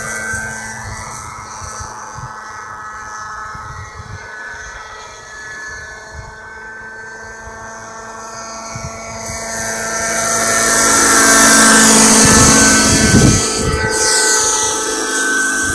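Radio-controlled model helicopter, a Thunder Tiger Raptor 50 with a Bell 206 LongRanger scale body and a two-stroke nitro glow engine, flying: a steady high-pitched engine and rotor whine. It grows loud as the helicopter passes close by about ten to fourteen seconds in, and the pitch drops as it goes past.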